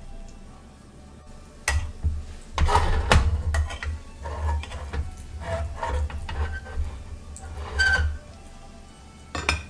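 Breaded chicken frying in olive oil in a pan, with several sharp knocks and clinks of a utensil against the pan, over background music.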